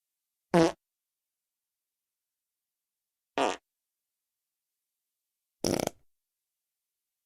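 Three short fart sound effects, one after another, about every two and a half seconds, with dead silence between them; the first drops in pitch.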